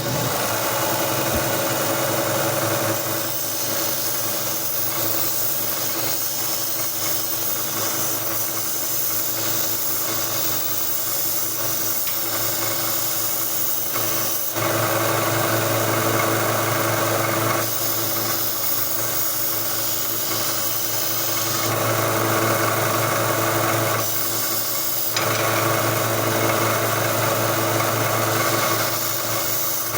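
1x30 belt sander with a 120-grit belt running with a steady motor hum, plus a rasping sanding noise as steel plier handles are ground on the belt. The sanding grows louder in several spells of a few seconds each from about halfway in.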